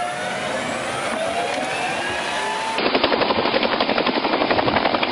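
A tank's engine whining with gliding, shifting pitch as it churns in mud. About three seconds in, this cuts abruptly to a louder, low-flying helicopter: rapid, even rotor chop over engine noise.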